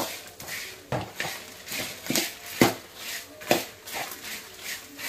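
Metal spatula scraping and clinking against a steel kadai while stirring dried red chillies, curry leaves and coriander seeds as they roast in a little coconut oil for rasam powder. The scrapes come irregularly, every half second to a second.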